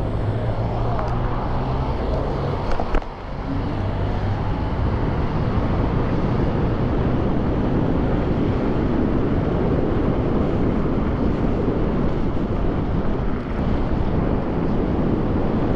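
Wind buffeting the microphone, with road noise, while riding an electric scooter on the road. A steady low hum sounds during the first few seconds, and there is a single sharp knock about three seconds in.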